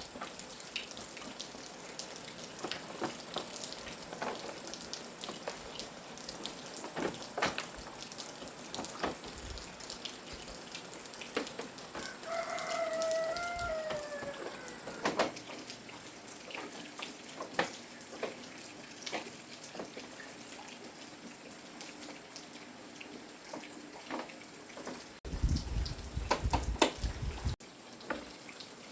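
A rooster crows once, about twelve seconds in, with one drawn-out call that falls in pitch at the end. Scattered sharp clicks and taps go on around it. Near the end there is a louder burst of low knocking lasting a couple of seconds.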